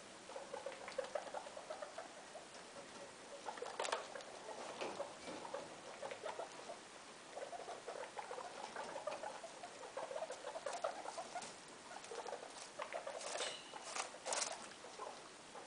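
Guinea pigs, a sow and her young, making many soft, short squeaks and chutters while pattering about on hay-strewn carpet, with a few sharper clicks about four seconds in and again near the end.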